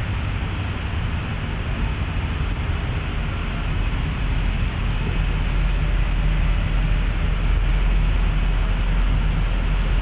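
Steady industrial machine noise in a grinding shop: an even hiss over a low rumble that grows louder through the second half.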